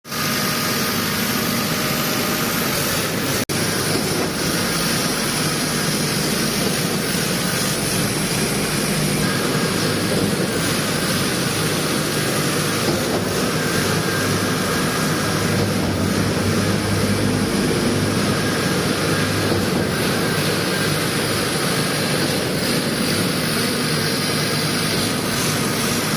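Diesel engine of a concrete pump running steadily under test, with a momentary break about three and a half seconds in.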